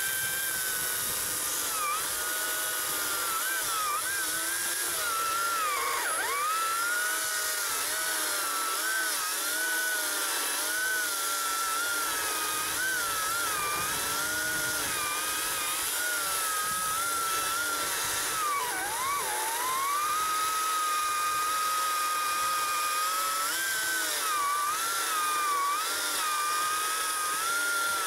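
Ryobi 40V brushless battery chainsaw cutting through a spruce trunk: a steady electric motor-and-chain whine that wavers in pitch as the chain works in the wood. Twice, about six and about nineteen seconds in, the pitch drops sharply and then recovers.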